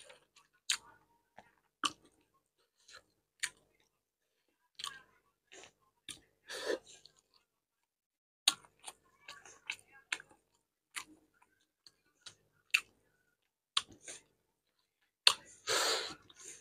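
Close-up eating sounds of a man eating rice and curry by hand: short, sharp, wet mouth smacks and clicks from chewing, scattered irregularly, with a longer, louder burst near the end.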